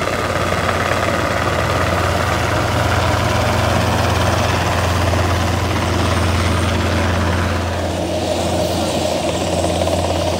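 Aircraft engine running steadily, a deep continuous drone that thins slightly in its higher tones about eight seconds in.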